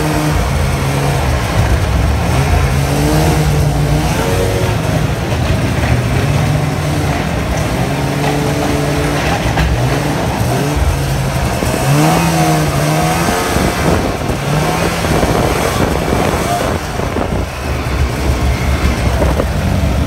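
Arctic Cat snowmobile engine running under way, its pitch rising and falling as the throttle is worked.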